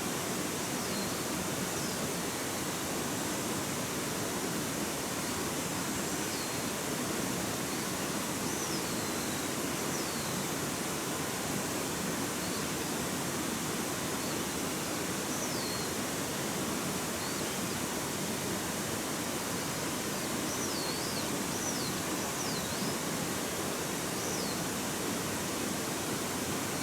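Steady rush of running water, with faint short high chirps now and then.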